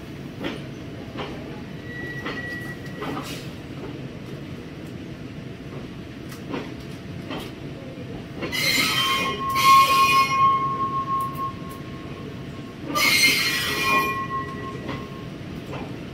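Train wheels squealing against the rails in two loud bouts, the first about eight seconds in and the second about thirteen seconds in, over a steady rumble with scattered clicks.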